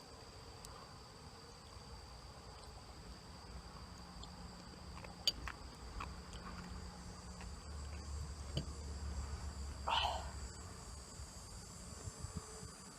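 Faint, steady high-pitched trilling of crickets, with a few light clicks and a short noisy rustle about ten seconds in.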